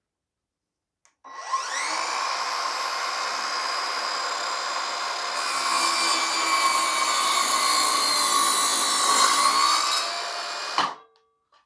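Evolution R185SMS 18V cordless sliding mitre saw spinning up with a rising whine about a second in, then cutting through wood at a bevel for several seconds. Near the end its blade brake brings it to a sudden stop, one the user calls stopping on a dime.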